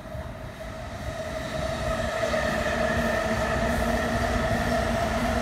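A passing train, getting louder over the first two seconds and then holding steady, with a steady whine over the noise of the wheels.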